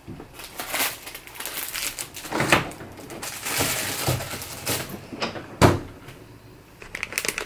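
A low kitchen drawer slid open with a knock, its contents rustled and shifted by hand, then pushed shut with a sharp bang about five and a half seconds in.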